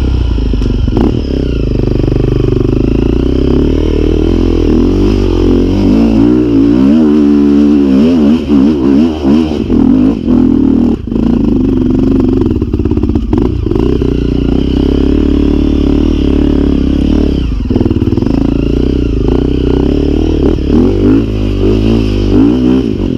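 Off-road motorcycle engine running hard under load, its revs swinging up and down with the throttle, with a few brief drops in the revs.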